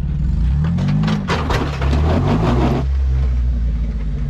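Jeep Wrangler engine revving under load, its pitch rising about a second in, as the Jeep crawls up a rock ledge. For about a second and a half the underside and tires scrape and crunch against the rock.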